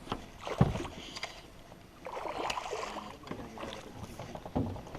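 Water splashing and sloshing around a small fishing boat, with a knock on the hull about half a second in and scattered small clicks.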